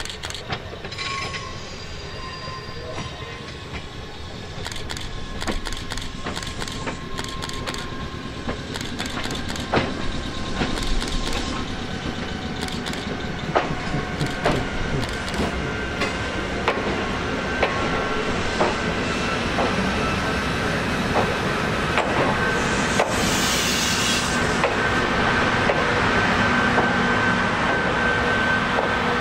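Electric train on the Ichibata Electric Railway running over rail joints, the clicks and running noise growing steadily louder as it draws closer. A steady high-pitched squeal builds through the second half, and a short hiss comes about three quarters of the way in.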